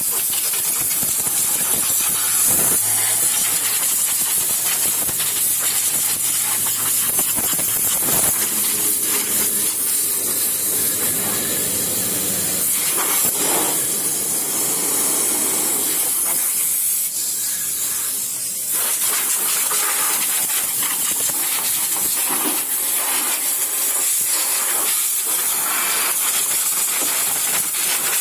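Steady, loud, high-pitched hissing noise throughout, with a brief dip about two-thirds of the way through.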